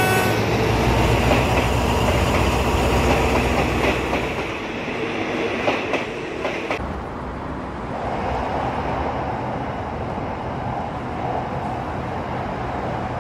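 Diesel-hauled passenger train rolling past, a heavy rumble with the coaches' wheels clacking over rail joints. About seven seconds in it drops to a quieter, duller rumble.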